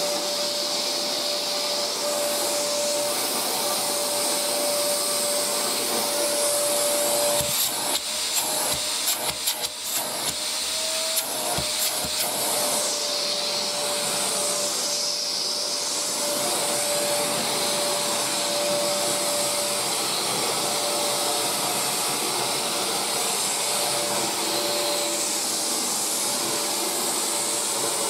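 Maytag Satellite hover vacuum cleaner with a 2000-watt motor running steadily: a constant high motor whine over a rush of air as it floats on its air cushion. A few short knocks come in the middle.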